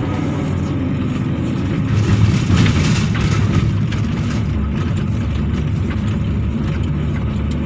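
Excavator's diesel engine and hydraulics running under load, heard from inside the cab while digging. About two seconds in, the sound gets louder for a second or so, with scraping and knocking as the bucket works into rocky soil.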